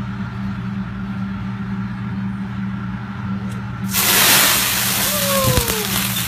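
Steady low hum, then about four seconds in a sudden loud sizzling hiss as liquid squirted from a bottle hits the hot teppanyaki griddle and flares up in flames.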